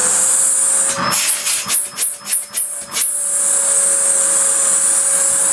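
Nilco S12 commercial tub vacuum cleaner running just after switch-on: a steady motor whine over a strong airy hiss. Between about one and three seconds in, the sound flutters in a run of quick pulses before settling steady again.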